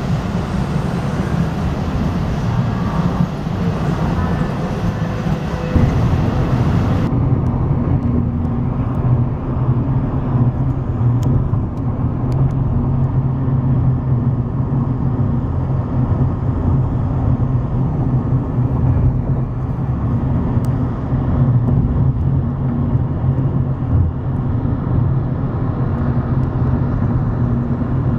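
A train of rail-carrying work cars rolling past with steady wheel and rail noise. About six seconds in, the sound changes abruptly to the steady low rumble and drone heard inside a moving vehicle, with a few faint clicks.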